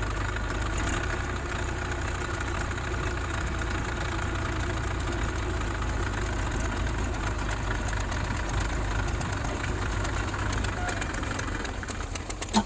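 A New Holland tractor's diesel engine running steadily, heard close up from the driver's seat while the tractor moves. There is a single sharp knock near the end.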